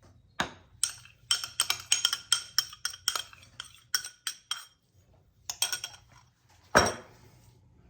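A metal utensil clinking against a dish in a quick run of ringing taps, several a second, then a pause, a few more clinks and one louder knock near the end.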